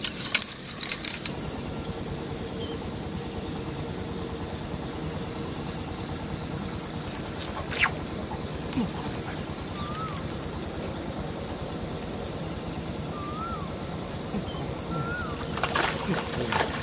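Outdoor ambience: a steady high-pitched whine over a low rumble, with a sharp tick about eight seconds in, three short rising-and-falling chirps in the second half, and a cluster of clicks near the end.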